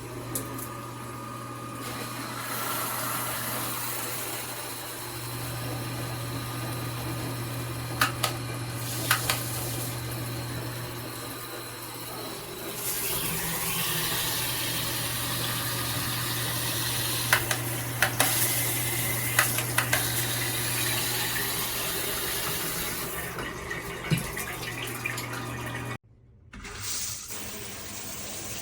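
Handheld shower head spraying water in a steady hiss, the sound of the spray shifting a few times, with a few sharp clicks. The spray cuts off suddenly near the end, and a different steady hiss follows.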